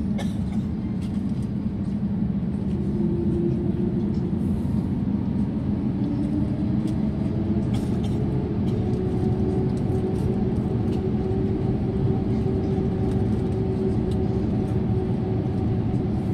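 Cabin noise inside an Airbus A350-900 as it taxis: a steady low rumble from the Rolls-Royce Trent XWB engines at taxi power and the wheels rolling over the wet taxiway. A faint steady hum joins in a few seconds in.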